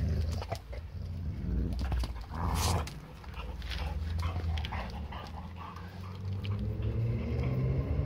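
A hound dog vocalizing as it plays with a whole zucchini, with a few knocks and scuffs in the first seconds as the zucchini is pushed about on concrete, and a longer, wavering vocal sound near the end.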